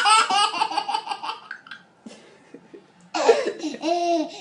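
Baby giggling in a quick run of laugh pulses for about a second and a half, then a short pause. A lower voice starts about three seconds in.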